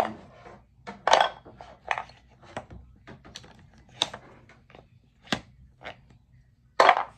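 Wooden toy tool kit pieces (painted wooden blocks, pegs and bars) knocking and clattering together as they are handled and pulled apart. Irregular clicks and knocks, with louder clatters about a second in and near the end.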